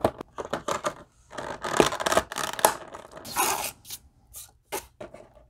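Cardboard box and plastic packaging tray being handled: a run of irregular rubs, scrapes and light knocks as the tray is slid and moved, loudest about two seconds in and again past three seconds.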